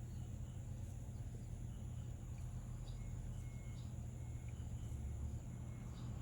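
Quiet outdoor ambience: a steady low hum with a few faint, short, high chirps scattered through it.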